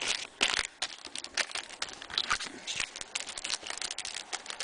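Trading cards being flipped through by hand: a quick, irregular run of light flicks, slaps and slides of card against card.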